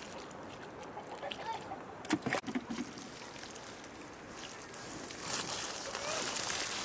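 Water poured from a small plastic cup onto the soil and seedlings of a garden bed, a splashing trickle that grows louder about five seconds in. A couple of short knocks come about two seconds in.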